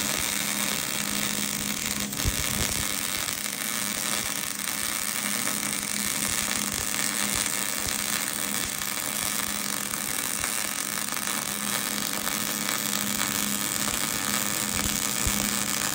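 Electric arc welding on the cast-iron center section of a Ford Dana 60 axle housing: a steady hiss from the arc, running without a break and cutting off at the end.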